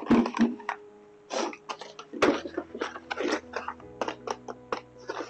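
Soft background music, with a quick, irregular series of short rustling noises over it.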